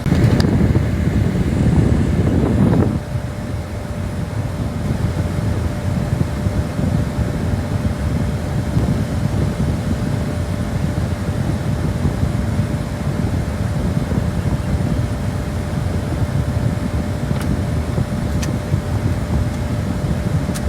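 Steady low rumble of a vehicle running, heard from inside it, with its fan blowing and a faint steady hum. The noise is heavier for the first three seconds, then settles.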